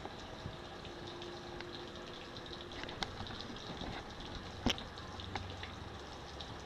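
Faint background noise with a few soft clicks and a brief faint steady hum; the outboard is not yet running.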